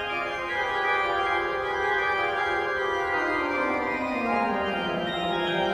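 Pipe organ playing sustained full chords, with the bass line stepping downward about three seconds in.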